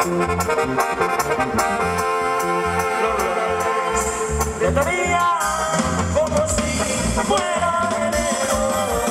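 Live dance band played through a large PA: a steady bass and drum beat under a melody.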